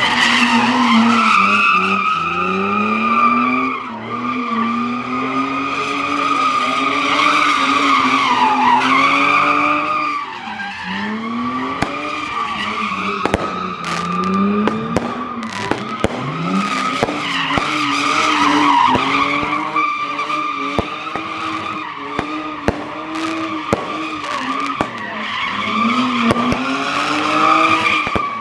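Car tires squealing without a break while the engine revs up and down over and over, as a car spins donuts. Many sharp cracks break in through the second half.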